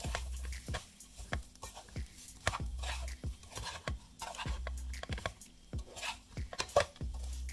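Slotted metal spatula scraping and clicking against a metal pan while stirring amla pickle pieces and spice mix, in quick irregular strokes.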